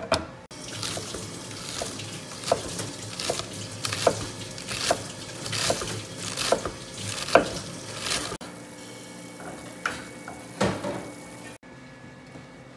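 Cleaver shredding cabbage on a thick wooden chopping board: a steady run of sharp knocks, a little more than one a second. Near the end, softer rustling as hands toss shredded cabbage and herbs in a stainless-steel tray.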